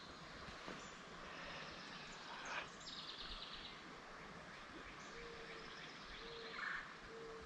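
Steady rush of river water running over rock riffles. A few bird chirps and a trill come about three seconds in, and three short, even low notes sound about a second apart near the end.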